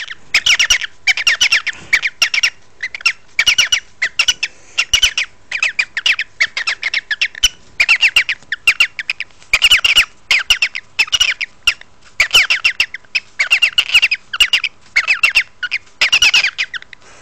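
Pet cockatiel making a run of harsh, repeated squawks and raspy chatter in short bursts, with no break of more than about a second, the noises it makes when it wants a stroke.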